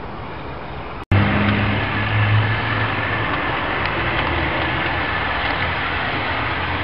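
Model railway train running on garden track: a steady rumble with a low hum and a faint high motor whine. The sound cuts abruptly about a second in and resumes louder as a double-headed train of two tank locomotives and coaches approaches.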